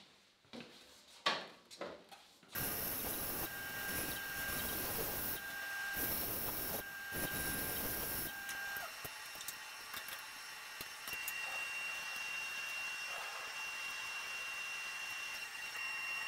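A few light knocks, then a 14-inch bandsaw is switched on about two and a half seconds in and runs steadily while cutting a board. A steady whine sits over the running noise and shifts to a higher pitch about halfway through.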